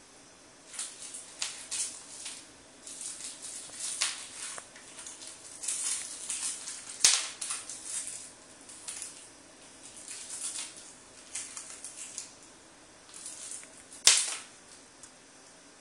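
A wrapped mint's plastic wrapper crinkling and rattling in irregular bursts as a cat bats it around a hard wood-look floor. Two sharp clicks, one about halfway through and one near the end, are the loudest sounds.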